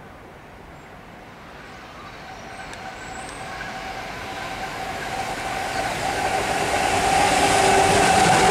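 Freightliner Class 70 diesel locomotive, its V16 engine running under power, hauling a train of cement tank wagons as it approaches. The steady engine drone grows louder throughout and is loudest at the end as the locomotive draws near.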